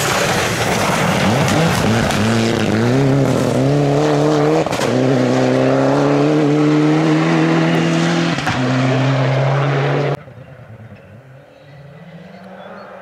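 Rally car engine at full throttle on a gravel stage, its note climbing with two quick gear changes, over the rush of tyres and gravel. About ten seconds in the sound cuts off abruptly, and a quieter, more distant engine follows.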